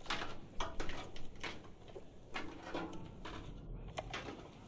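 Footsteps of a man coming down stairs: an uneven series of knocks and scuffs, about two a second.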